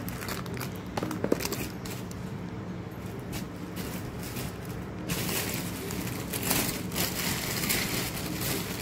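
Clear plastic packaging rustling and crinkling as it is handled, with a short click about a second in and louder, denser crinkling from about five seconds in, over a steady low hum.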